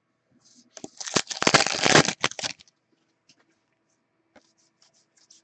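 Foil trading-card pack being torn open and its wrapper crinkled, a burst of crackling lasting about two seconds, followed by a few faint ticks as the cards are handled.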